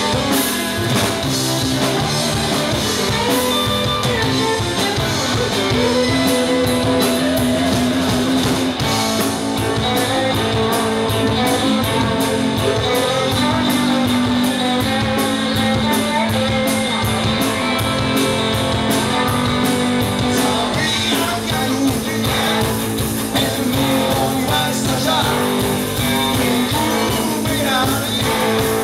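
Rock band playing live: electric guitars, bass guitar and drum kit, with singing over them.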